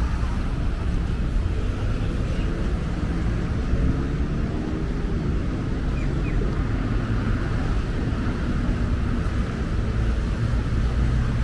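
Road traffic running past: a steady low rumble of vehicles. In the middle a heavy truck's engine can be heard, its pitch shifting up and down over a few seconds.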